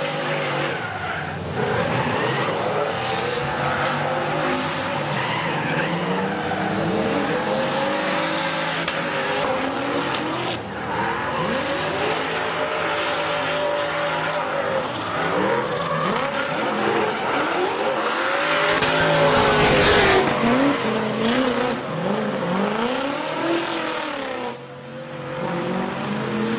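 Drift cars sliding in a tandem run. Their engines rev up and down hard while the tyres squeal. It is loudest about three-quarters of the way through.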